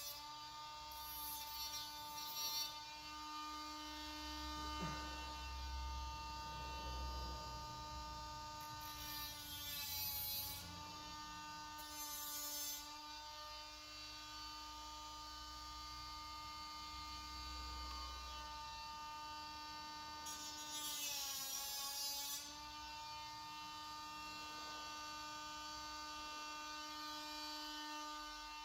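Small cordless rotary grinding tool running with a steady whine. Its pitch sags under load several times, most clearly about ten and twenty-one seconds in, with short bursts of hissing grinding as it grinds down the metal staples hot-set into a plastic grille.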